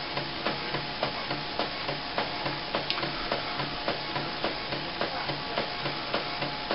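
Brother DCP-330C inkjet printer printing a colour copy: a steady mechanical whir as the print head carriage shuttles, with a regular click about five times every two seconds.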